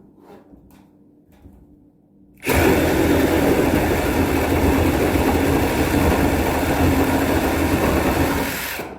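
Milwaukee M18 Fuel reciprocating saw with a Spider 9-inch nail-and-wood blade cutting through wood under just the saw's own weight. It starts suddenly about two and a half seconds in, runs loud and steady for about six seconds, and stops shortly before the end. A few faint clicks come before it.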